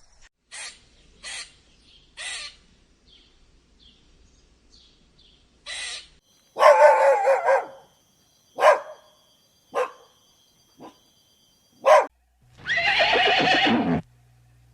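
An animal calling: a few short soft sounds, then a series of short pitched cries and one longer, louder call near the end.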